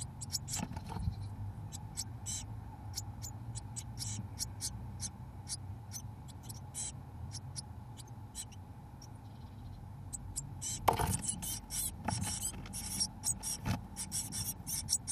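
Blue tit nestlings giving short, high begging calls in quick runs, which grow denser near the end as a parent arrives with food. About eleven seconds in there is a knock and scraping from the adult at the box entrance and birds shuffling on the nest material.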